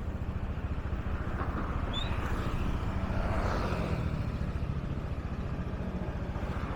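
Small motorbike engine running steadily while riding along.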